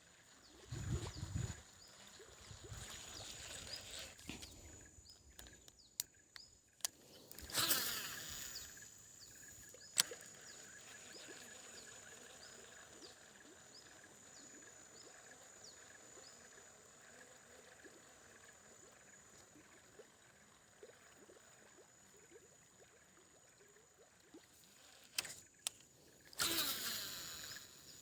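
Quiet outdoor ambience with a steady high-pitched insect drone and faint, regularly repeated chirps. A few sharp clicks and two brief swishing rushes break in, one about eight seconds in and one near the end.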